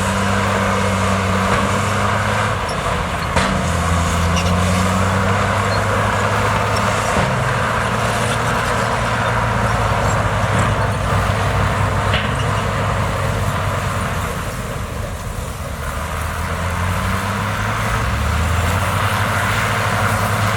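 Heavy diesel engine of earthmoving machinery running steadily under load, its note shifting up and down and easing briefly about three-quarters of the way through, with a few short metallic knocks.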